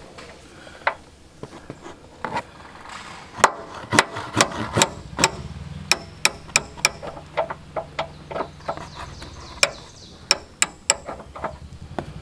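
Hammer striking a removal tool to drive a steel door hinge pin out of a Jeep Wrangler JK door hinge. A couple of single sharp strikes come first, then a run of about twenty blows at roughly two or three a second from a few seconds in until near the end.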